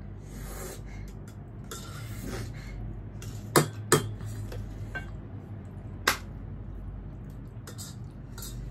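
Cutlery clinking against a dish three times: two quick clicks about three and a half seconds in and one more about two seconds later, between softer handling noises.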